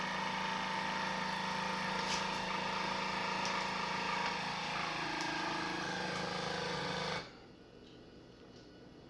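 Geryon vacuum sealer's pump running steadily, drawing the air out of the bag, then cutting off suddenly about seven seconds in.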